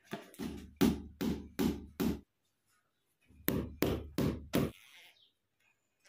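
A hammer driving in the nails of cable clips, two runs of four quick blows, about two and a half a second, with a short pause between the runs.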